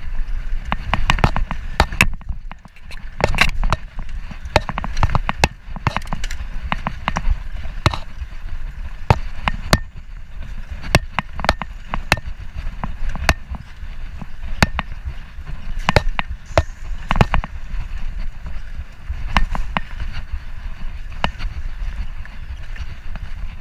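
Mountain bike ridden fast down a dirt singletrack: a steady low rumble of wind on the microphone, with frequent, irregular sharp rattles and knocks from the bike jolting over roots and bumps.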